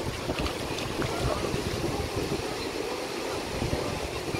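Wind buffeting the microphone over the steady wash of small waves on a sand beach.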